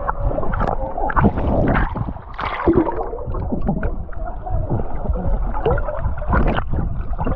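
Water sloshing and gurgling close to the microphone as swimmers move about in a swimming hole.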